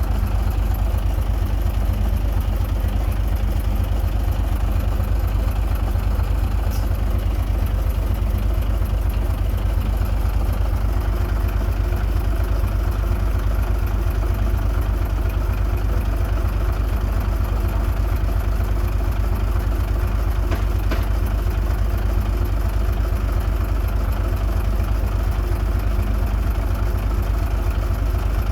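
Diesel engine of a Komatsu D21A bulldozer running at a steady speed, with no revving.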